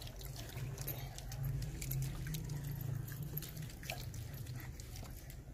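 Faint scattered clicks and rustles of children eating finger chips by hand from plates, over a steady low rumble.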